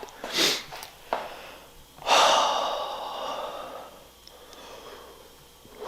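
A short breathy sound, a click about a second in, then a loud hiss that starts suddenly about two seconds in and fades away over about a second and a half.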